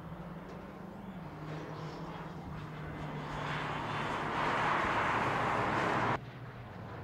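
BMW X6 M's twin-turbo V8 running at speed, its steady note dipping slightly about a second in. A rushing noise builds as the car passes, is loud from about four seconds in, and cuts off abruptly about six seconds in.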